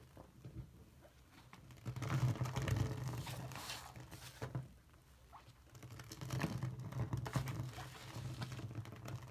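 Hands squishing through a sink full of soapy bath-slime lather, then a stream of water pouring into the foam, in two louder stretches of wet, crackling splashing.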